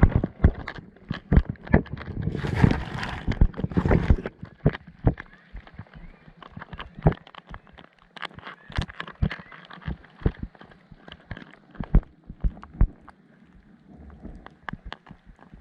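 Irregular sharp clicks and knocks, several a second, with a short burst of rustling noise about two to four seconds in.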